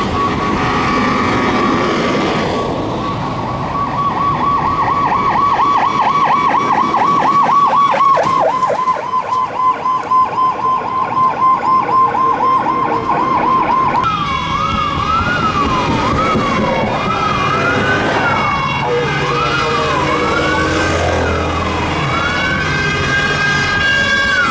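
Fire engine's electronic siren in a fast warble that switches, about halfway through, to a slower up-and-down wail, with a long rise held high near the end. A steady horn-like tone sounds alongside in the second half, over the low rumble of the truck's engine.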